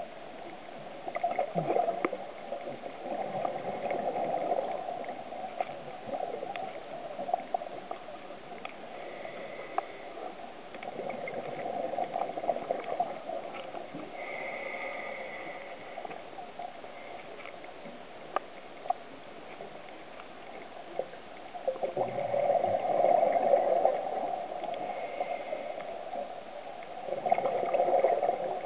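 Underwater recording of a scuba diver's exhaled bubbles gurgling, swelling in several surges a few seconds long, with scattered small clicks.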